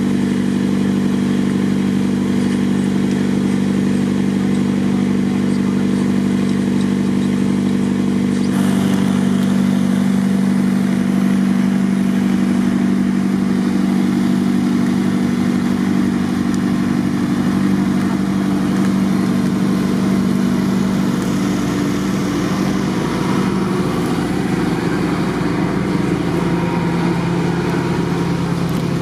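Diesel engines of a Godwin dewatering pump and a trailer generator running steadily at a flood dyke, pumping out floodwater; the drone changes abruptly about eight seconds in.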